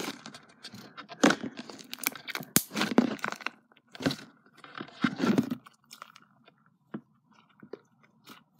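Fluffy shaving-cream slime being squeezed and kneaded in the hands right against the microphone, in irregular bursts that grow sparser and quieter near the end.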